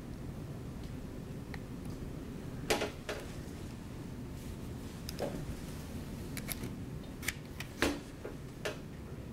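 Scattered clicks and taps from a laptop's keys and trackpad, about seven in all and irregular, the loudest near the start and near the end, over a steady low room hum.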